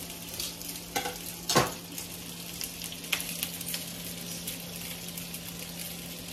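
A steady sizzling hiss over a low, even hum, with a few light clicks and taps of a fork on a plate, the sharpest about a second and a half in.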